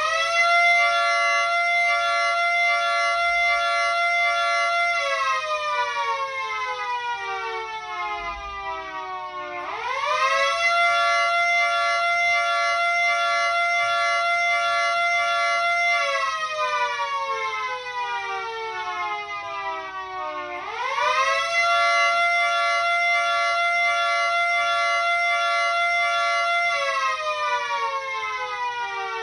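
Miniature 2T22A two-tone siren sounding a slow rise-and-fall signal, three cycles. Each time it winds up in about a second to a steady chord, holds for about four seconds, then winds down slowly for about five seconds without stopping before winding up again.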